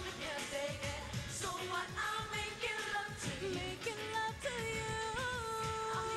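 Pop song with a female singer and a steady beat; she holds one long note from about two thirds of the way in.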